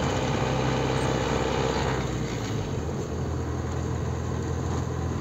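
Truck engine running steadily while driving, heard from inside the cab, with road noise. Its low drone drops in pitch about two seconds in.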